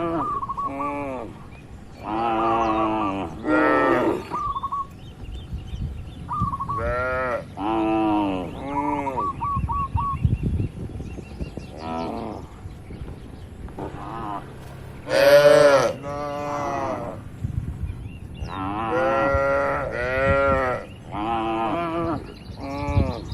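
Cattle mooing over and over, about a dozen separate calls from several animals, each rising and falling in pitch, the loudest about fifteen seconds in.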